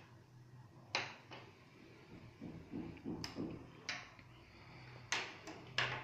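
Pieces of a skull model being handled and set down on a wooden tabletop: about five light knocks and taps, with soft handling noise between them.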